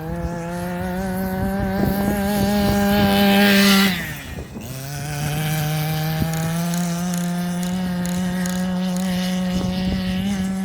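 The small two-stroke petrol engine of a 1/5 scale RC car running under throttle while it is being broken in. Its pitch climbs slightly, then drops sharply as the throttle comes off about four seconds in, and it picks up again soon after and holds steady.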